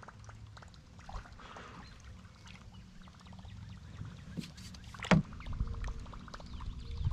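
A single sharp knock against the canoe about five seconds in, then a fast, even run of fine clicks from a fishing reel being wound in.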